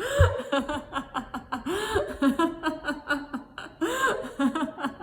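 A woman laughing on purpose in a long run of quick 'ha-ha' pulses, several a second, as a laughter yoga exercise. Three drawn-out whoops rise and fall in pitch about two seconds apart.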